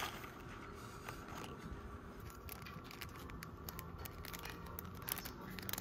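Small clicks and crinkles of plastic-wrapped card product packs being handled on metal display hooks, getting busier in the second half, over a faint steady hum.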